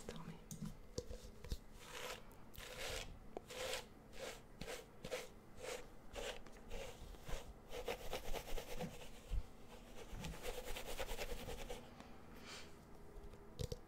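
Fingers rubbing and scratching through hair held close to a microphone: separate swishes at first, then a faster run of dense scratching in the middle.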